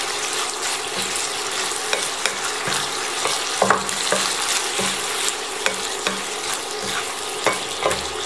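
Pork belly cubes stir-fried in a nonstick pan: a steady sizzle under frequent scrapes and knocks of a wooden spatula turning the pieces, as the coconut sugar melts into the sauce.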